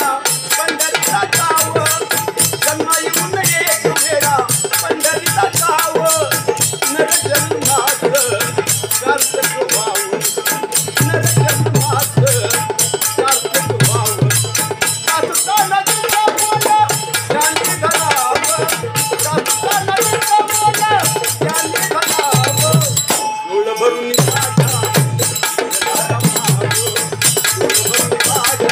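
Marathi devotional bhajan music: a fast, steady rhythm of jingling percussion over repeated drum beats, with a wavering melody line above. The music drops out briefly about 23 seconds in, then resumes.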